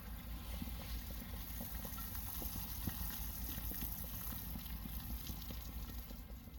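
Water boiling in a small metal pot over a burning paraffin wax and sawdust fire starter: a steady bubbling with many small pops and ticks.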